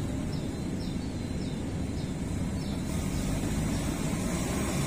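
Steady low rumble of an engine or machine running, with a faint high chirp repeating every half second or so.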